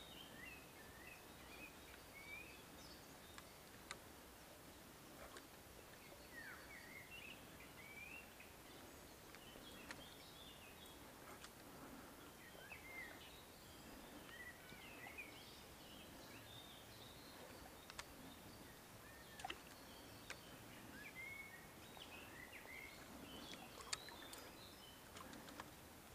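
Faint bird calls: many short chirps and brief rising and falling notes, scattered over a quiet hiss. A few faint sharp clicks stand out among them, the clearest about four seconds in and near the end.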